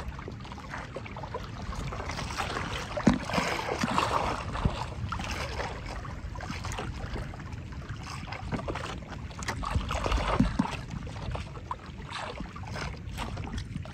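Water lapping and splashing against the hull of a small wooden outrigger canoe drifting on choppy sea, with a few sharp knocks on the boat, the loudest about three seconds in and again near ten seconds.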